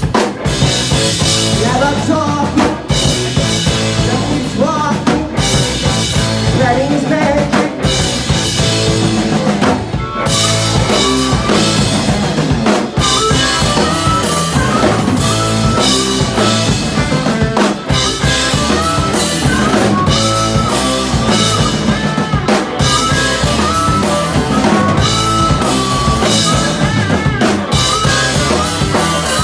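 Live rock band playing an instrumental passage. A full drum kit drives a steady beat under bass and a lead melody line, whose notes bend in pitch early on and are held longer later.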